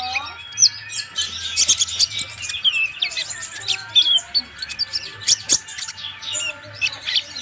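Purple-throated sunbird (konin, Leptocoma sperata) singing vigorously: a rapid, unbroken run of short, high chirps and twittering notes.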